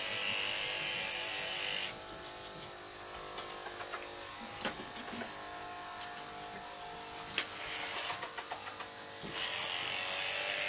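Small electric pet hair trimmer buzzing steadily while trimming a dog's coat; it is louder for the first two seconds and again near the end, with a couple of sharp clicks in between.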